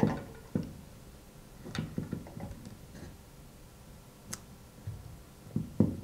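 Light clicks and taps of multimeter probes being placed against the light switch's wire terminals, with small handling noise. A sharp click comes about four seconds in, and a louder knock near the end.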